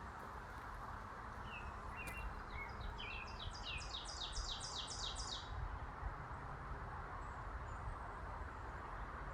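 A songbird sings one phrase: a few short notes, then a quick run of about ten repeated sweeping notes, ending about halfway through. A steady hum of distant traffic runs underneath.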